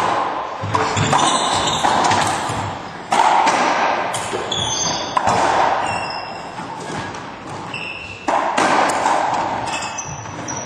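Racquetball being struck and bounced in an enclosed court: three sharp impacts, each trailing off in the court's long echo. Short rubber sneaker squeaks on the hardwood floor come in between.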